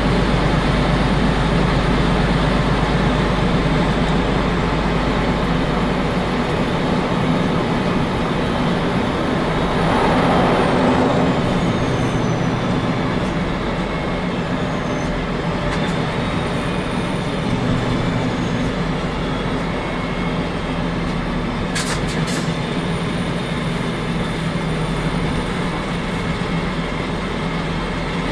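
Truck's diesel engine running under way, a steady low drone heard from the cab with the roof hatch open. The sound swells briefly about ten seconds in, and two sharp clicks come a little over twenty seconds in.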